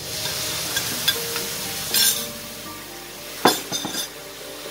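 Soy sauce seasoning poured into a hot wok of stir-fried fish cake strips and leek, sizzling as it hits the pan, with a wooden spatula stirring. A sharp knock comes about three and a half seconds in, then a few lighter clicks.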